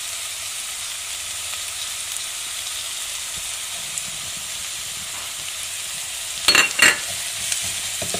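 Sliced onion and garlic frying in hot oil in a pan: a steady sizzle, with two louder scrapes of a wooden spatula stirring near the end.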